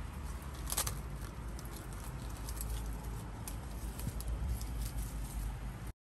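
Outdoor garden ambience: a steady low rumble with scattered small clicks and rustles, one sharper crackle about a second in. It cuts off suddenly near the end.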